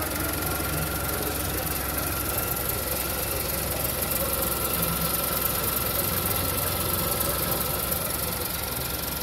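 Seat Ibiza's 1.2 three-cylinder petrol engine (code CGPA) idling steadily, heard close up in the engine bay, with a faint steady whine over the running.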